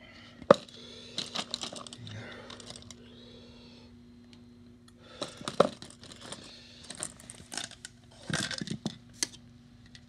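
Plastic Bic lighters clicking and clattering against one another in a plastic tub as a hand rummages through them, in irregular bursts with a few sharp knocks.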